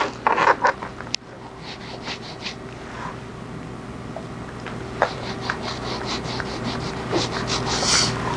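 Wool brush rubbing black penetrating dye onto the grained leather of a handbag: a series of soft brushing strokes, the loudest near the end.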